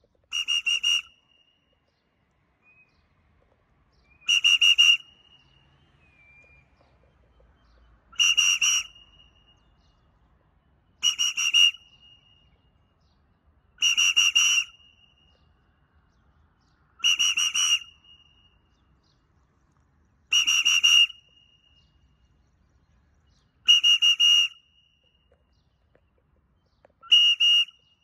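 A hand-blown warbling whistle sounded in nine short, even blasts, about one every three seconds. It is a recall signal calling a free-flying pet bird back home.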